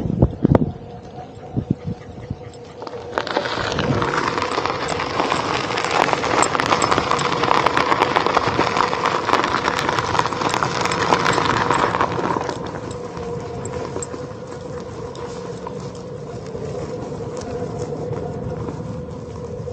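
Onewheel GT electric board rolling, its tire crunching over a gravel path as a dense crackle from about three seconds in until about twelve seconds, then a quieter rolling noise, over a steady hum.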